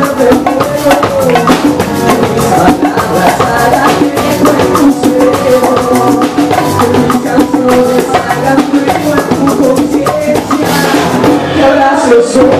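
A live band playing: a strummed acoustic guitar, hand drums and percussion, and a male voice singing.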